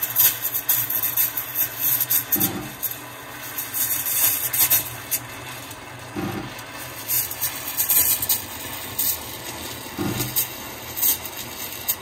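Espresso machine steam wand hissing in a stainless steel pitcher of milk, with irregular crackling and sputtering as the milk is heated and frothed for a cappuccino. A short low hum comes in about every four seconds.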